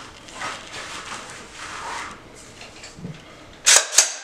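AR-15 rifle being handled and made safe: soft rustling and handling noise, then near the end two sharp metallic clacks as the charging handle is pulled and the action is worked to clear it.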